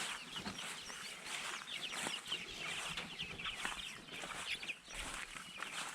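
Chickens clucking and chirping, with many short calls repeating throughout.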